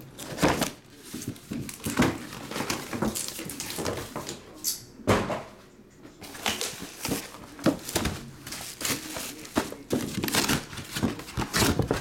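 Plastic bubble wrap crinkling and rustling as it is pulled out of a cardboard box and piled up, with irregular crackles and knocks and a brief high hiss about five seconds in.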